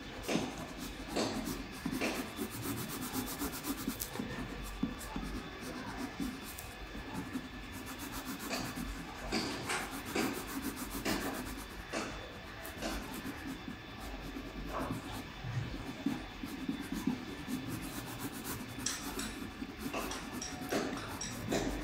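A colouring crayon shading back and forth on drawing paper: quick, irregular scratchy strokes that keep on with short pauses, laying lemon yellow over green.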